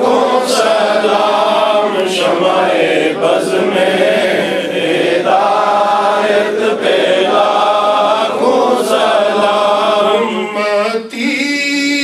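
Men's voices chanting a devotional hymn of praise together, unaccompanied, in long held notes.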